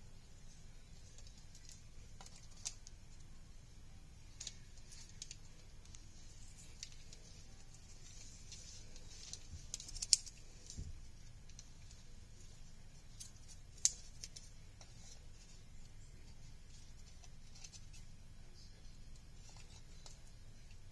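Faint rustling and small clicks of a rhinestone trim strip and white paper strips being handled. A few sharper clicks stand out, the loudest about ten seconds in and another a few seconds later.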